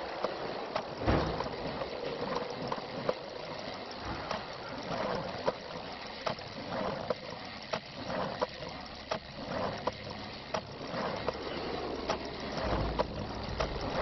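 Mechanical clicks and ticks at irregular intervals, one or two a second, over a steady rushing noise, like the cogwheels of a clockwork figure turning and knocking as it moves.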